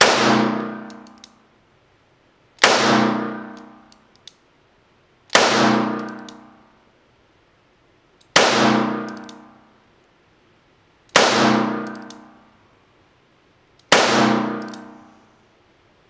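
Colt King Cobra revolver fired six times in slow, deliberate single shots, about one every two and a half to three seconds, emptying the cylinder. The rounds are 158-grain lead round-nose loads. Each loud report rings out and fades over a second or more in the small indoor range.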